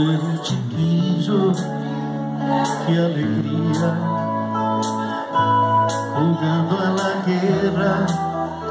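Live band playing a song's instrumental introduction: electric bass holding long notes under keyboard and guitar chords, with drum cymbal strokes keeping time.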